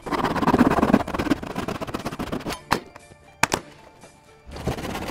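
A Japanese pull saw sawing through the last of a thick elm slab, then a few sharp cracks as the cutoff is broken free, over background music.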